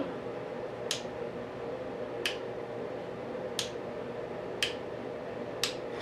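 A sub-micro switch on an RC helicopter clicked five times, about a second apart, switching the tail boom lights on and off.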